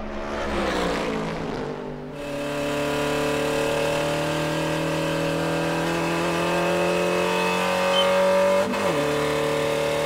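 Car-like engine sound running at a steady, slowly rising pitch after a whoosh at the start, then dropping sharply in pitch near the end as it passes by.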